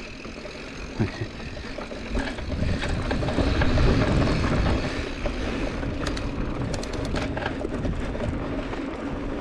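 Mountain bike rolling fast over a rocky dirt trail, heard from a handlebar-mounted action camera: a steady rumble of tyres and wind, loudest about four seconds in. About six to seven seconds in there is a run of sharp clicks and rattles as the bike goes over stones.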